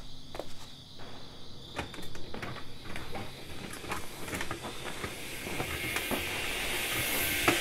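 Scattered clicks and knocks of hands working at a Vespa scooter, over crickets chirping. From about halfway a high hiss swells steadily and cuts off sharply at the end.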